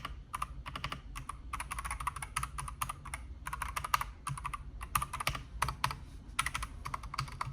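Keys of a Redragon K668 mechanical gaming keyboard being typed in quick runs of clacks, with short pauses between runs, as a sound test of its switches.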